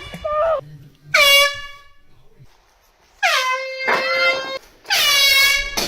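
Handheld air horn blasted three times, about a second to two seconds apart: loud, buzzy blares, the second held longest.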